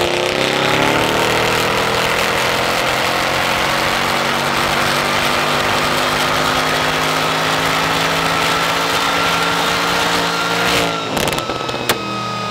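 BMW 5 Series sedan engine making a dyno pull on a chassis dyno: the revs climb slowly and steadily at full throttle for about eleven seconds, then drop off as the throttle closes, with a couple of sharp cracks from the exhaust.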